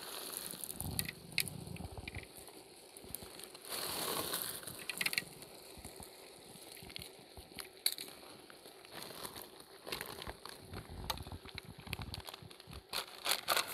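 Quiet crackling and rustling with scattered small clicks: a large pan of paella rice simmering over a low flame while aluminium foil is handled.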